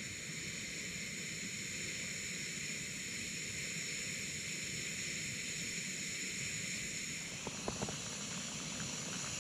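Primus canister gas stove burner running under its pot, a steady hiss. A few light clicks near the end as a hand takes hold of the stove's valve.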